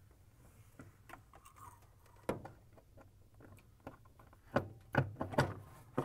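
Scattered plastic clicks and knocks as a refrigerator ice maker is handled and fitted back against the freezer's inner wall, with a cluster of louder knocks near the end.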